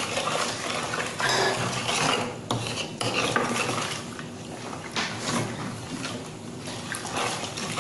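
Wooden spoon stirring a thin mix of milk, yeast and sugar in a large white plastic bowl: repeated scraping strokes against the bowl with the liquid swishing.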